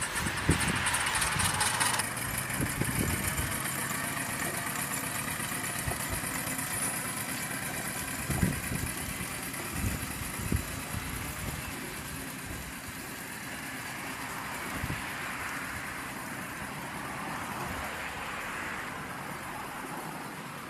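Home-built miniature steam engine of a Hornsby chain crawler model running as it drives away, its sound slowly fading. A sharp hiss of steam fills the first two seconds and then cuts off.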